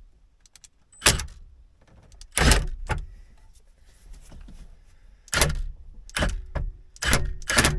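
Cordless drill/driver run in several short trigger bursts, driving fasteners into the dash panel.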